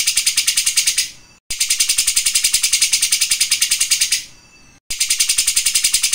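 Caged songbird's high, rapid rattling trill of about thirteen even notes a second, the machine-like 'mesin jahit' (sewing machine) song style. It breaks off twice for a moment and starts again.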